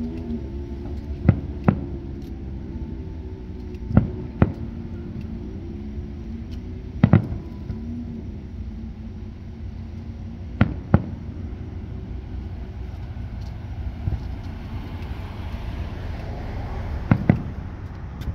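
Aerial firework shells bursting with sharp bangs, mostly in close pairs, five pairs over the stretch, over a steady low rumble.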